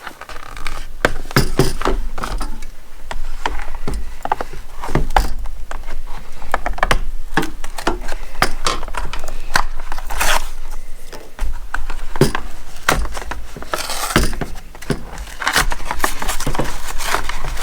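Retail tool packaging being torn open at its pre-cut notch and handled: a steady run of crackles, scrapes and knocks, with low rumbling handling noise on the microphone.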